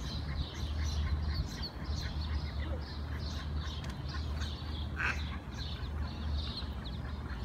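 Brood of mallard ducklings peeping: many short, high-pitched peeps in quick succession, with one louder, lower call about five seconds in, over a steady low hum.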